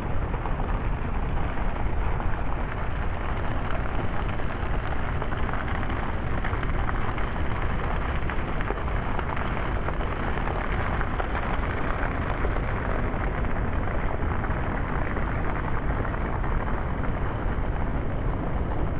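Water pouring and dripping from a rock overhang onto a wet stone path, a steady splashing hiss like heavy rain, over a deep low rumble.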